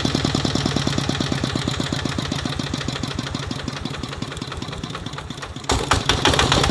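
Kubota RT125 DI single-cylinder diesel engine running with its steady knocking beat. It slows and quietens over about five seconds as the throttle lever is eased back, then jumps back up to a loud, fast run near the end as the throttle is opened again.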